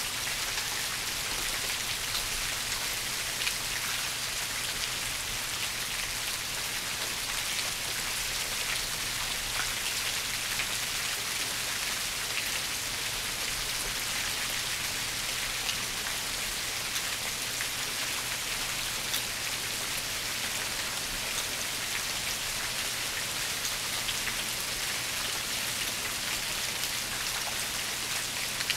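Steady rain falling: an even hiss of rain with many small drop impacts.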